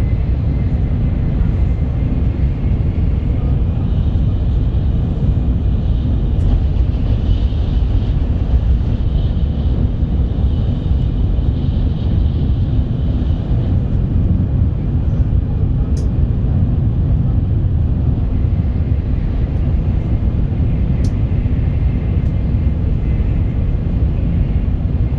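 Shinkansen bullet train running at speed: a steady, loud low rumble and rush of running noise, with a few faint clicks.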